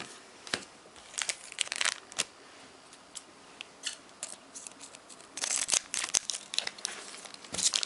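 Foil Pokémon booster pack wrapper being torn open and crinkled, in scattered bursts of crackling, with trading cards rustling as they are handled.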